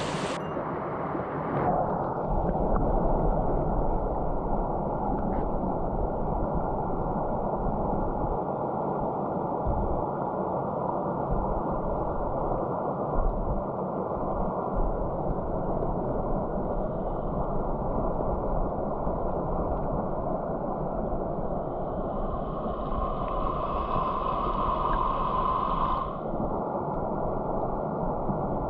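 Steady rush of mountain-stream water, heard muffled with the high end missing. Near the end a steady pitched tone sounds for a few seconds over it.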